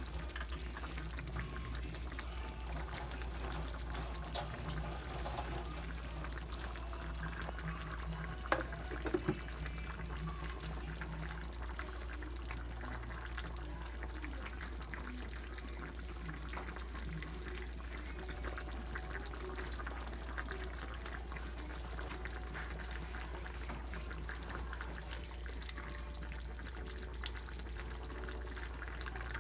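Chicken afritada stew simmering in a frying pan, its tomato sauce bubbling, over a steady low hum. A couple of brief clicks come about eight and a half seconds in.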